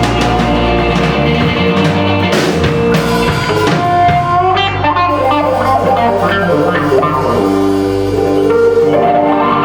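Live rock band playing: electric guitar with drum kit, loud and continuous.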